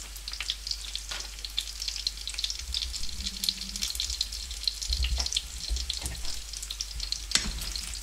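Potato noodles and cornflake-coated sausages sizzling and crackling in hot oil in a frying pan, with a few short knocks near the middle and near the end.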